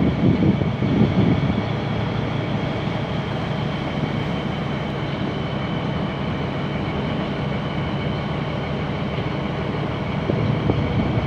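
Boat engine running steadily under way, a continuous drone with wind buffeting the microphone, the buffeting heavier in the first second or so.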